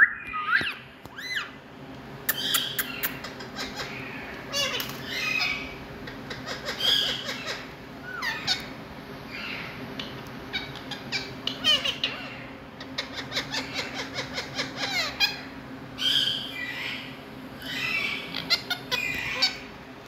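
Indian ringneck parrots (rose-ringed parakeets) calling: a string of squawks, chirps and chatter, with quick runs of short clicky notes about two-thirds of the way in.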